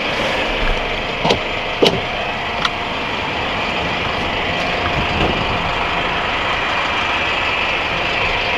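Inline-four turbo diesel of a GAZelle NN truck idling steadily. Three or four brief light knocks come between about one and three seconds in.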